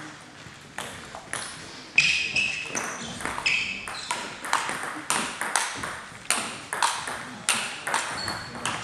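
Table tennis rally: a celluloid-type ball clicking off bats and table about twice a second, starting with the serve about a second in, each click echoing briefly in the hall. A few short high squeaks, from shoes on the wooden floor, come between the hits.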